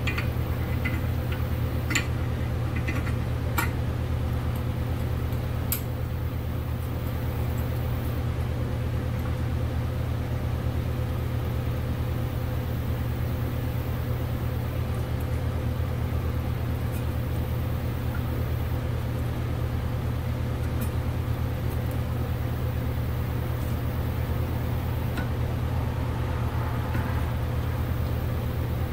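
A steady low hum with a faint even tone above it, unchanging throughout. Over it, in the first few seconds, a handful of light metallic clicks as the brake line flaring tool is fitted and worked on the line held in the vise.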